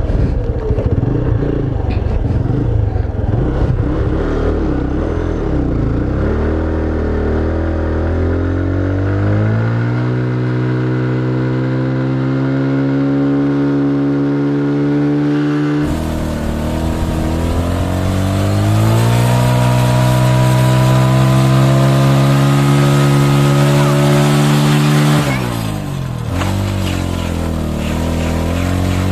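TVS Apache RTR 160's single-cylinder engine revved hard in a burnout. It climbs in pitch and is held at high revs, twice, and starts climbing a third time near the end.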